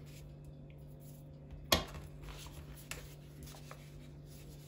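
A single sharp clink of a metal spoon against a stainless steel mixing bowl about a second and a half in, followed by a few faint ticks and paper rustles as the paper baking forms are handled, over a low steady hum.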